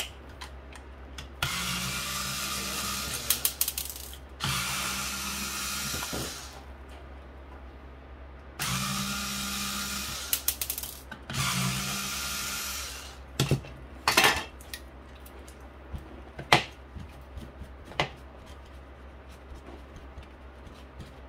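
Electric screwdriver running in four bursts of about two seconds each, backing screws out of a printer's casing. After that come several sharp clicks and knocks.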